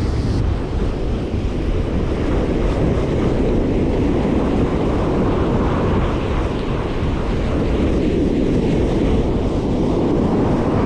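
Ocean surf breaking and washing up a sandy beach, with wind buffeting the microphone, in a steady loud rush.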